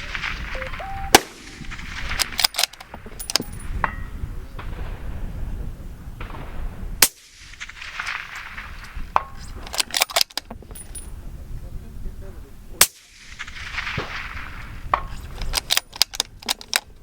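Three suppressed rifle shots about six seconds apart, with quieter sharp clicks and knocks between them.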